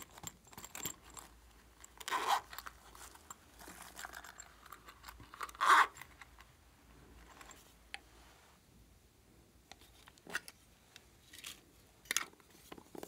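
Hands handling small plastic and rubbery toy cases: scattered clicks and taps, with two louder brief scraping, crunching sounds about two and six seconds in.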